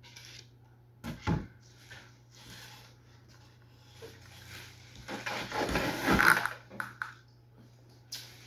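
Handling noises as the welder and its packaging are worked on: a sharp knock about a second in, a longer stretch of rustling with a thump between about five and six and a half seconds, and a short click near the end.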